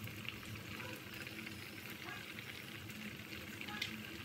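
Pot of Khmer korko soup boiling, a steady crackling bubble across the surface.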